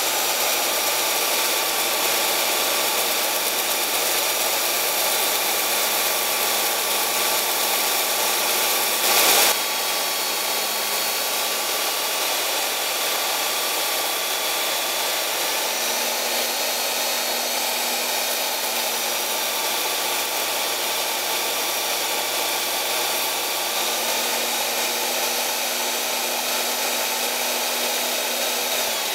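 A 4x24-inch belt sander with a 120-grit aluminum oxide belt running steadily while an old, pitted steel chisel is held flat on the belt and ground, with a faint whine over the grinding hiss. One short louder rasp comes about nine seconds in.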